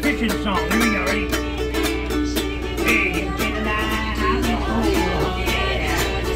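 A man singing while strumming a ukulele, with steady regular strums. A steady low rumble runs underneath.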